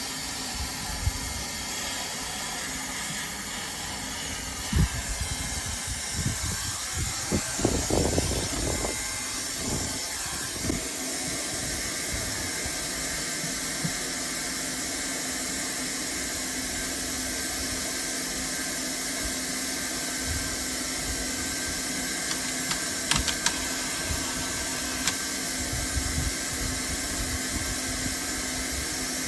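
Hot-air welder for PVC membrane blowing steadily with a continuous hiss. A run of irregular knocks and thumps comes about five to eleven seconds in, and a few sharp clicks come near the end.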